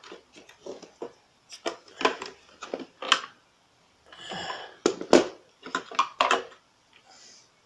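Hard plastic clicks, knocks and rattles as a Flytec amphibious RC stunt car is handled and turned over and its battery pack is pushed into place. A short scraping rustle comes about four seconds in.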